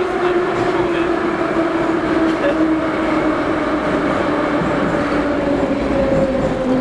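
Metro train heard from inside the carriage: a steady, loud running noise with a motor whine that falls slowly in pitch, as the train slows.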